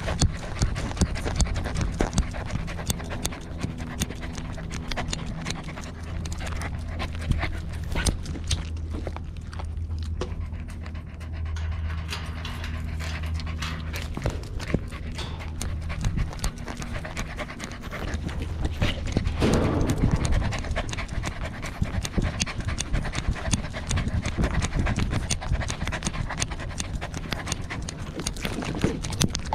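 Corgi panting close to the microphone, with frequent short clicks and knocks throughout and a brief louder rustle about two-thirds of the way in.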